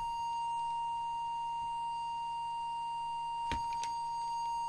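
Steady, pure test tone from an audio oscillator modulating the CB transmitter while its deviation is set, holding one pitch and cutting off suddenly at the end. Two short clicks sound about three and a half seconds in.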